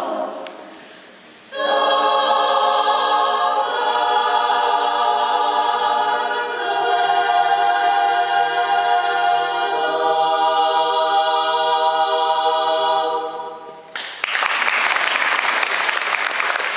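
Women's choir singing a cappella: a slow closing phrase of long held chords that fades away. Audience applause breaks out suddenly near the end.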